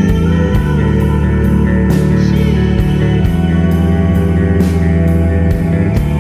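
Background music: guitar-led rock with a steady beat.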